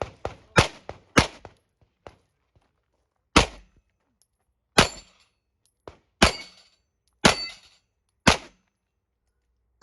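A string of handgun shots fired during a practical shooting stage: about seven loud shots at irregular intervals, with a few fainter reports between them. Two of the shots are followed by a brief ringing tone.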